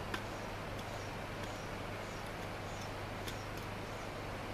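A few faint light ticks, the clearest just after the start, over a steady background hiss: a lid-lifter tool tapping on a cast-iron Dutch oven to knock the gray ash off its charcoal briquettes, which the cook believes lets more heat out.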